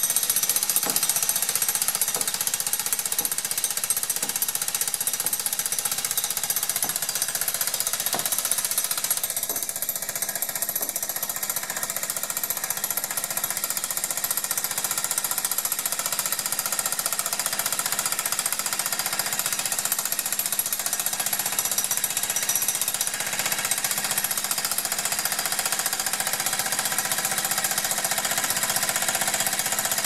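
Corded Bosch electric jackhammer hammering steadily, its chisel breaking up a concrete patio slab. A few separate knocks stand out over it in the first several seconds.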